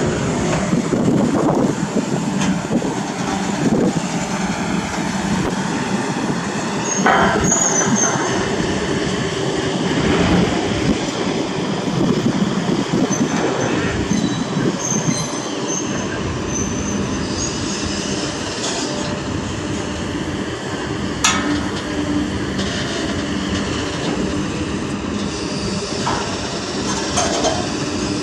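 Kobelco SK200 hydraulic excavator running steadily under load: its diesel engine and hydraulics work as it lifts and swings a steel frame. A few brief high squeals come through about a quarter and halfway in.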